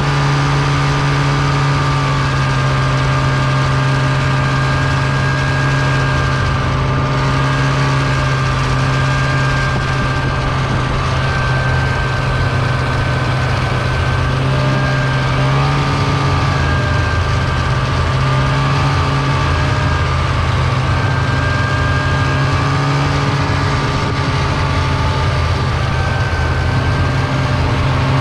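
Snowmobile engine running steadily at trail-riding speed, its pitch holding nearly even with small rises and dips as the throttle is eased and opened, over a steady rush of track and snow noise.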